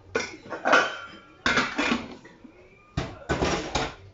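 A utensil scraping and clattering against a cooking pot in three rough bursts, typical of stirring food in the pot.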